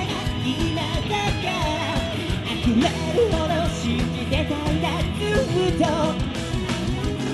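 Live rock band performance: a lead vocalist sings over electric guitar, bass and drums.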